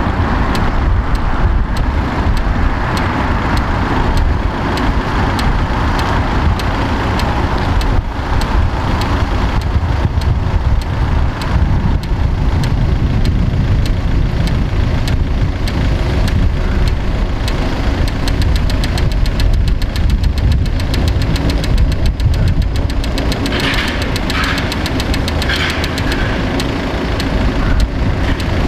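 Street traffic: cars idling in a queue at a junction and moving off, a steady low engine and tyre rumble.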